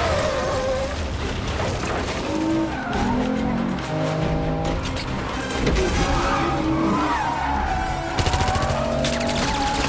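Film car-chase soundtrack: the Aston Martin DBS's V12 engine revving hard with tyre squeal, under an orchestral score. About eight seconds in comes a rapid burst of gunfire.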